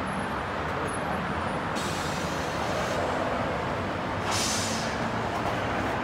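Keisei Transit city bus pulling into a terminal bay, its engine running with a low rumble. Air-brake hiss comes in two bursts, one starting sharply about two seconds in and a second about four seconds in.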